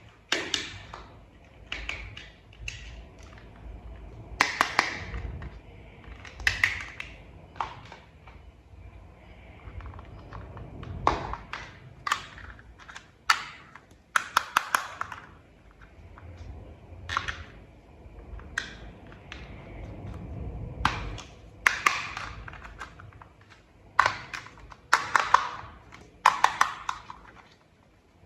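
Hands handling and fitting together small plastic toy parts: irregular clicks, taps and short scraping rustles, some in quick clusters of snaps.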